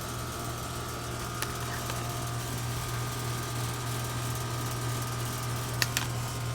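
Central air-conditioner outdoor condensing units running in cooling mode: a steady compressor hum with condenser fan noise. A sharp click about a second and a half in, and two more close together near the end.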